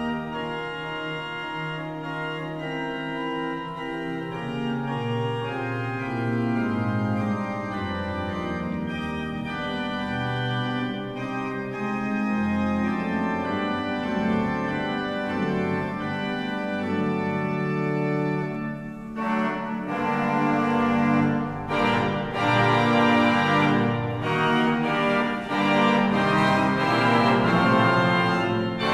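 Organ music playing slow, held chords; about two-thirds of the way in it briefly drops away, then swells louder and fuller with more high notes.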